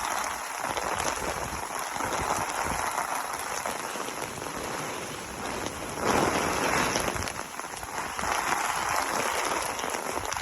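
Hurricane rain and gusting wind, a steady rush that swells with a gust about six seconds in and again near the end.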